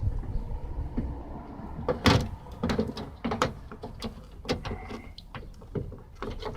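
Irregular knocks and clicks of BMW E65 door handle parts being handled and fitted into the door, the loudest knock about two seconds in.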